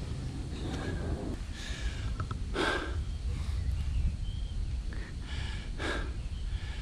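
A hiker breathing hard on an uphill climb, with two strong exhalations about two and a half and six seconds in, over a steady low rumble.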